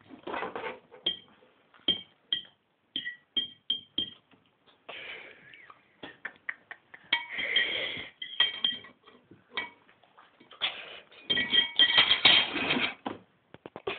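Metal cutlery on a china plate: a series of short clinks with a brief ring, then a denser, louder stretch of a knife scraping and cutting on the plate near the end.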